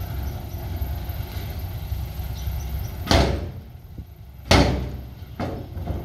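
Heavy diesel earthmoving machinery running steadily with a low rumble, broken by two loud, short bursts of noise about three and four and a half seconds in, each fading quickly, and a smaller one near the end.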